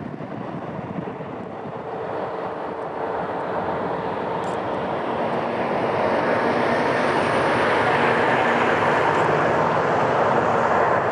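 Jet airliner engines, a broad rushing noise with a faint steady whine, growing steadily louder as the aircraft comes closer.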